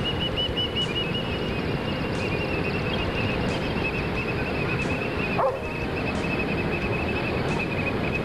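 Bicycle riding along a dirt trail: a steady rumble of tyres and wind over the microphone, with a fast rippling squeak-whir from the bike running through it. One brief louder sound comes about five and a half seconds in.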